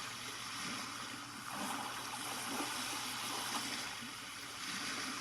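Lielongren white noise sound machine playing one of its soothing sounds through its small built-in speaker: a steady, water-like hiss.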